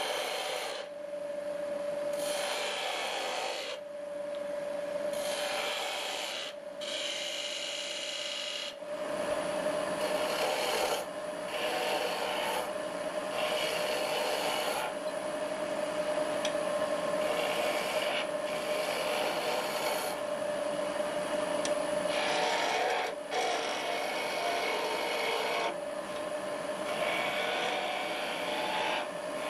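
Skew chisel cutting a spinning wooden cylinder on a wood lathe: a rasping hiss that comes in repeated passes a second or two long, with brief breaks between them, over the running lathe's steady hum.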